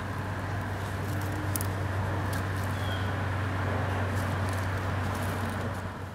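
A steady low mechanical hum with a hiss over it, like a running motor, dropping away near the end.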